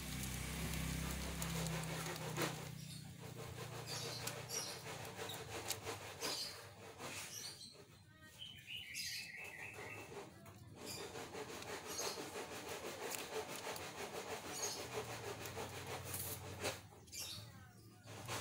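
Thin clear plastic packaging crinkling and rustling as hands pull a kitchen knife and a stainless steel cheese grater out of their bags, with many small crackles throughout.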